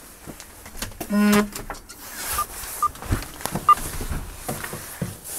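A door being handled and footsteps through an entryway, with scattered clicks and knocks. About a second in there is a short, loud buzzing tone, and a few faint high beeps come around the middle.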